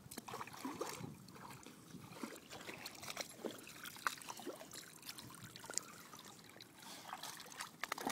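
Pit bull puppy splashing as it paddles and wades through shallow lake water: a run of small, irregular splashes and trickles.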